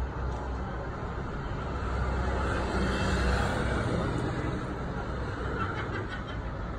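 Road traffic noise: a steady rumble and tyre hiss that swells and fades again as a vehicle passes, loudest about three seconds in.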